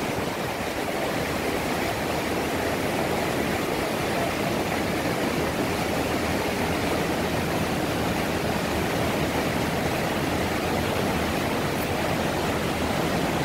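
The Bhagirathi (upper Ganges) river rushing over a boulder bed: a steady, even noise of fast whitewater.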